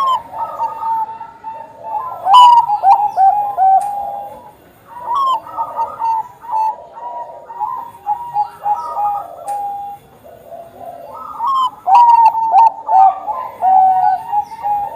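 Zebra dove of the Bangkok perkutut type cooing: three phrases of quick, repeated staccato coo notes with short pauses between them.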